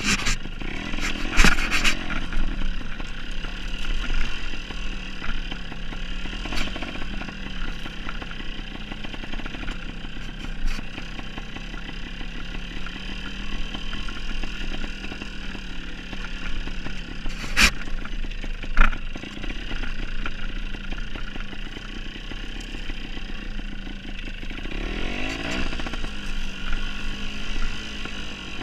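Dirt bike engine running at low, steady throttle while riding a rough trail, with a few sharp knocks and clatter over rocks. The revs rise briefly near the end.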